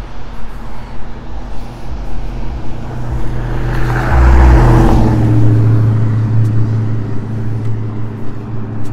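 A car passing by on a snowy road: tyre hiss builds, peaks about halfway through, then fades, leaving a low engine hum that dies away slowly.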